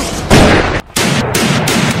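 War-style soundtrack of rapid gunfire over music, with sharp shots in quick succession and a brief sudden drop-out a little under a second in.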